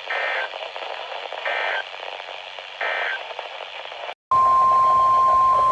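NOAA Weather Radio EAS broadcast over a steady radio hiss: three short warbling digital data bursts about 1.3 s apart, the end-of-message code that closes an alert. A little after four seconds the signal drops out briefly, then the steady 1050 Hz weather radio alert tone starts, announcing the next warning.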